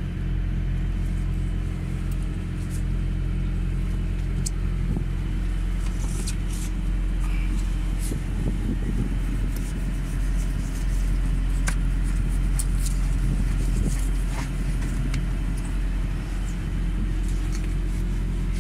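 Fishing boat's engine running steadily with a low drone. Occasional light clicks and knocks sound over it.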